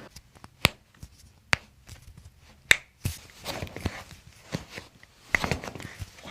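Spinal joints cracking during a chiropractic neck adjustment: three sharp, separate pops within the first three seconds, then softer rustling with one more click near the end.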